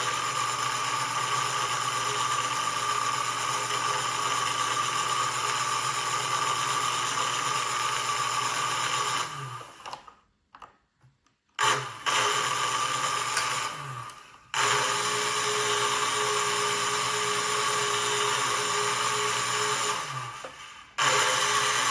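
Lionel No. 182 remote control magnetic crane's electric motor running with a steady whir as the crane is worked from its push-button controller. It winds down and stops about halfway through, restarts, stops again briefly a few seconds later, and stops once more near the end before starting up again.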